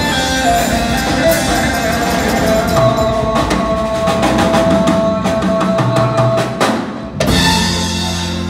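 Live raï band playing: violins hold one long note over darbuka and drum kit beats. About seven seconds in the music briefly drops away, then the full band comes back in.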